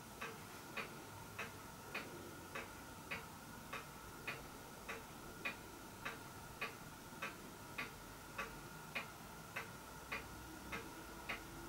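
Faint, steady ticking, a little under two ticks a second, evenly spaced, over a faint steady high whine.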